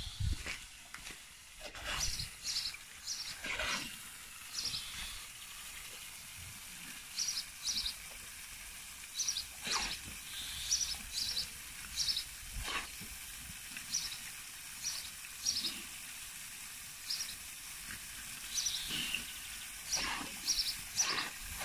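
Garden hose nozzle spraying water in intermittent spurts while a boxer dog bites and mouths at it. Short high chirps, typical of a bird, repeat every second or so in the background.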